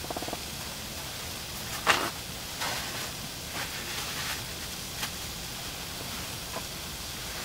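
Sliced onions and peppers frying gently in oil in a cast iron pot, a steady soft sizzle with a few sharp ticks.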